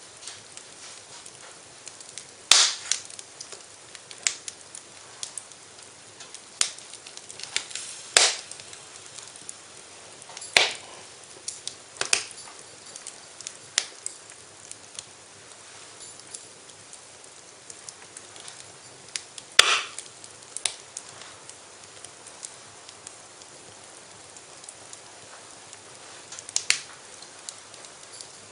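Wood fire in a fireplace crackling, with a steady soft hiss and irregular sharp pops, a few of them loud.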